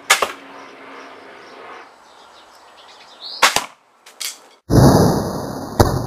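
A 150-pound crossbow fires with a sharp snap right at the start. A few seconds later come further sharp knocks, then a loud rushing noise with a sharp smack near the end as the bolt strikes the stab-proof panel on the target.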